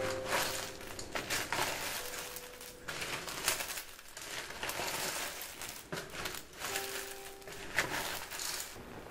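Snails in their shells being stirred with a wooden spoon in a pot of boiling water. The shells clatter and scrape against each other and the metal pot in repeated swells.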